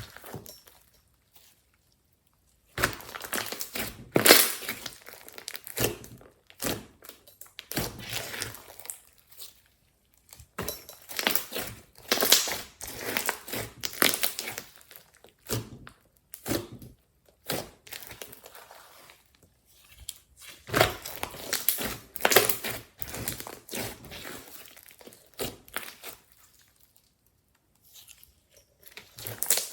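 Glossy slime being handled, squeezed and stretched, giving sticky crackling and tearing sounds in irregular bursts with short pauses between.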